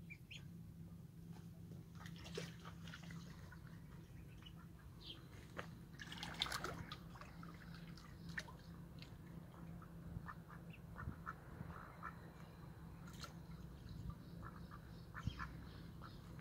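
Indian Runner ducks quacking in short, scattered calls, with a louder cluster about six and a half seconds in.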